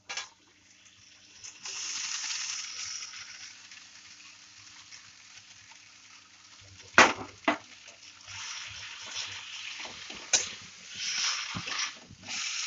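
Boiled noodles sizzling as they go into a hot steel kadhai of sautéed capsicum and onion, then a spatula knocking against the pan several times as the noodles are tossed.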